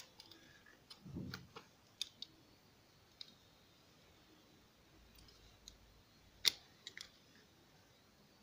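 Needle-nose pliers clicking against the metal contacts and plastic housing of a refrigerator compressor start relay while its thermal disc is pried out: a few faint scattered clicks, with a small knock just after one second in and the sharpest click about six and a half seconds in.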